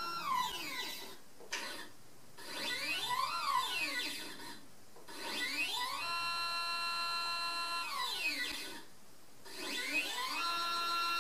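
EQM-35 Pro equatorial mount's motor slewing with a steady electronic whine. It slows to a stop with the whine falling in pitch and speeds up again with the whine rising, three times over, and holds a steady pitch between the ramps.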